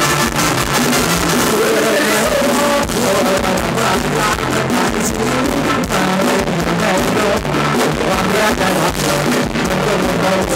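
Live band playing upbeat Thai ramwong dance music at a loud, steady level, with electric keyboard, drum kit with cymbals and a stepping bass line.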